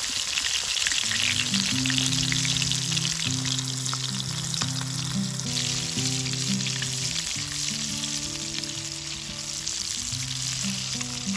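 Whole battered bluegill frying in hot oil in a cast-iron skillet, a steady dense sizzle and crackle of bubbling oil. Soft background music with held low notes comes in about a second in.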